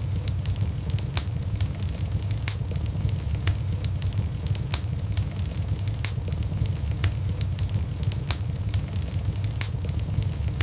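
Wood fire crackling in a fireplace: irregular sharp pops and snaps, several a second, over a steady low rumble of the burning.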